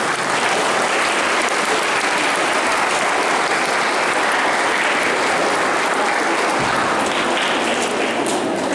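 Audience applauding: steady, dense clapping that eases slightly near the end.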